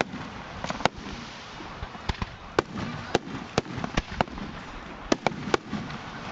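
Aerial fireworks shells bursting at close range: about a dozen sharp bangs at irregular intervals, some in quick pairs, over a steady background noise.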